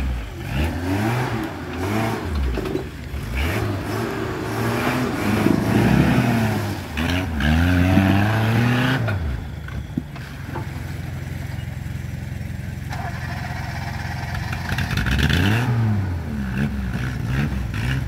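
Off-road 4x4's engine revving up and down again and again, then holding a steady drone for about six seconds before revving up and down again.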